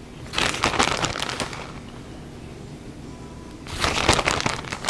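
Plastic packaging crinkling and crackling in two bursts of about a second each, one near the start and one near the end.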